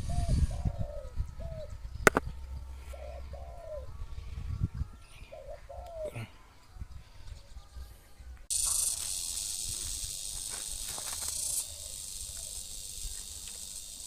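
Spotted dove cooing, a run of short low notes in the first half. A sharp click about two seconds in, and a steady high hiss that starts suddenly past the middle.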